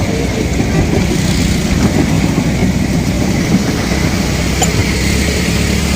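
Steady engine drone of a small train running along.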